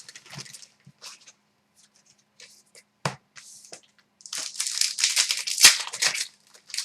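Trading-card pack wrapper being torn and crinkled as the cards are handled. Scattered crackles and a single knock come first, then a louder, continuous run of crinkling and tearing over the last two and a half seconds.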